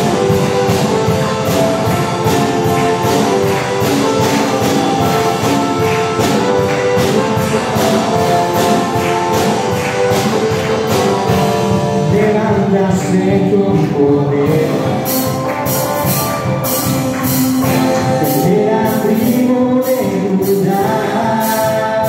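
Live worship music: women singing a praise song with electric guitar and keyboard over a steady beat. In the second half bright percussion strokes come about twice a second.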